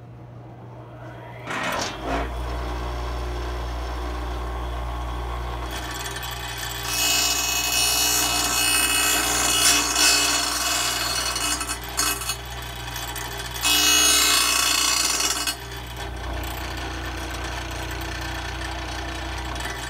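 Belsaw 10452 saw sharpener's motor starts and spins up about two seconds in, then its 3/8-inch gumming wheel grinds the steel gullets of a 32-inch circular saw blade. There is a long stretch of grinding from about six to twelve seconds and a shorter one around fourteen seconds, with the wheel running freely between them as the blade is indexed to the next tooth.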